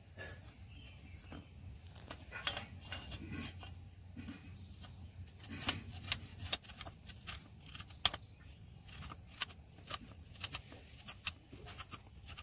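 Raw green mango being grated on a small flat metal hand grater over a clay bowl. Starting about two seconds in, there are irregular rasping strokes with light clicks.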